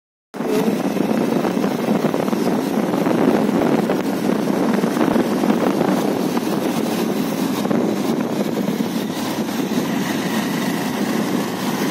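Motorcycle riding at a steady speed, heard from on the bike: a constant engine drone with an even rushing noise. It cuts in abruptly just after the start.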